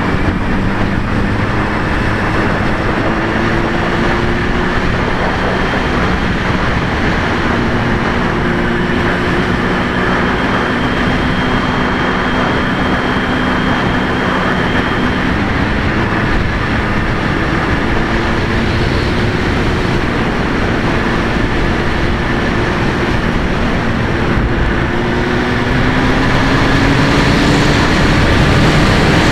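Honda Hornet 900's inline-four engine running at a steady road speed under heavy wind rush. Near the end its pitch climbs and it gets a little louder as the bike speeds up.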